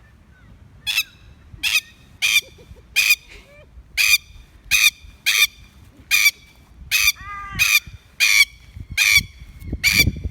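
Plover giving a run of harsh, loud alarm calls, about thirteen sharp calls a little more than one a second, as it defends against people who come near. A low rumble swells near the end.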